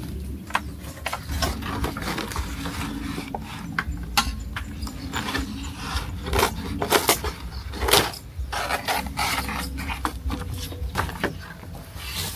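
Irregular knocks, clicks and scraping, densest and loudest about halfway through.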